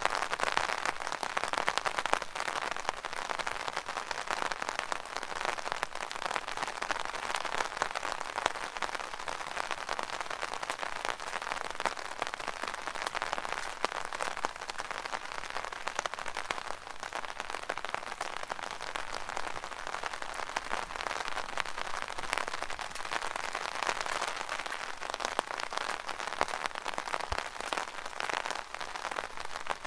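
Steady rain falling on an umbrella: a dense, even spread of many small drop hits on the canopy.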